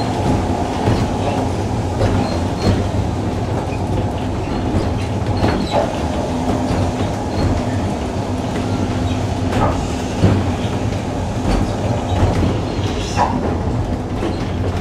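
Heritage electric tram running along its track, heard from inside the saloon: a steady rumble of wheels on rail with a low motor hum, and a few sharp clicks from the wheels about five, ten and thirteen seconds in.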